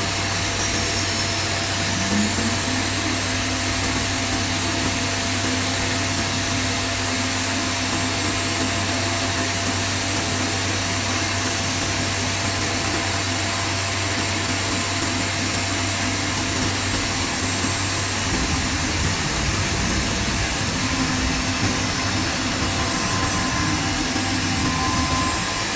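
CNC router machinery running steadily: a loud, even machine noise with a steady hum. A low tone joins about two seconds in, drops out for a few seconds late on, and comes back.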